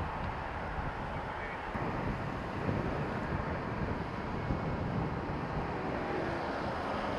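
Gusting wind buffeting the microphone: a steady rushing noise with a rumbling, fluttering low end.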